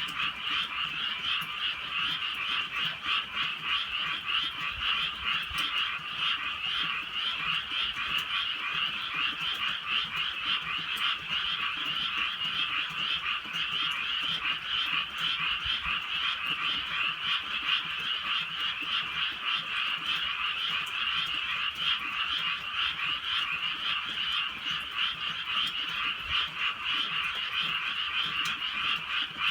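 A dense chorus of many frogs calling at once at night, a steady, unbroken din with no pauses.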